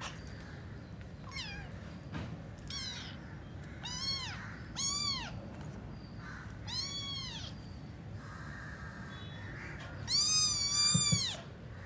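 Kittens meowing: about half a dozen short, high-pitched mews, each rising then falling in pitch, with a longer, louder mew near the end.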